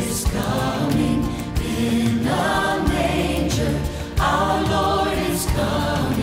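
Choir singing a Christian worship song over instrumental backing, with the voices swelling in two phrases: one about two seconds in and one after four seconds.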